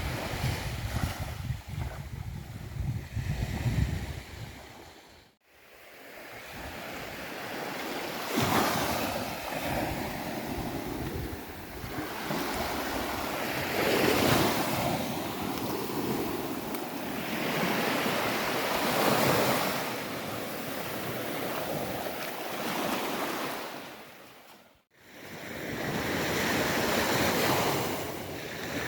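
Sea waves breaking on a beach, the surf swelling and ebbing every five seconds or so, with wind buffeting the microphone in the first few seconds. The sound fades out and back in twice, about five seconds in and near the end.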